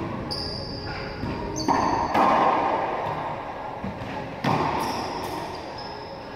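Racquetball rally: the hollow rubber ball struck by racquets and smacking the court walls, four sharp echoing hits, near the start, twice around two seconds in and once past four seconds. Short high squeaks of sneakers on the hardwood floor come between the hits.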